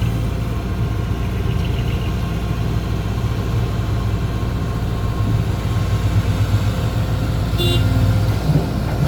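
Dump truck engine running steadily with a low drone. About three quarters of the way in there is a short high-pitched toot.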